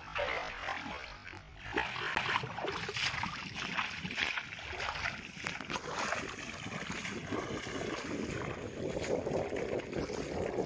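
Irregular splashing footsteps through shallow, grassy floodwater.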